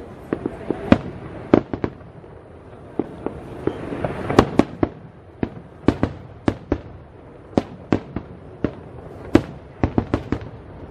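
Aerial fireworks bursting: an irregular string of sharp bangs and pops, a few a second, over a steady crackling hiss.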